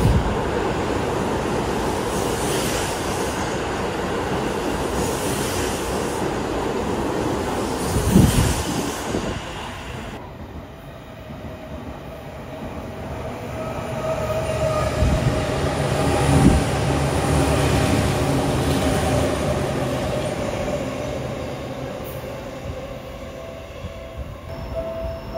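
Seibu electric commuter trains passing through stations at speed. A 40000 series train rushes past close by with a steady rush of wheel and air noise and one loud thump about eight seconds in; then a 4000 series train approaches and passes, its low rumble growing louder over a few seconds before fading.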